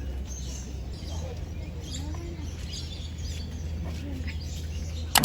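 Birds chirping faintly and intermittently over a steady low outdoor rumble, with a sharp click near the end.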